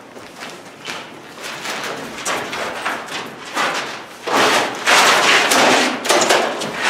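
Scuffing and rustling noise of people moving about on a gritty concrete floor, louder and rougher in the second half.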